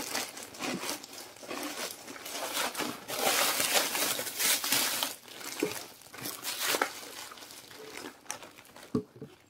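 Soft plastic courier mailer being opened by hand, its plastic and an inner clear plastic bag crinkling and rustling as they are handled; the loudest crinkling is in the middle, with a few small knocks near the end.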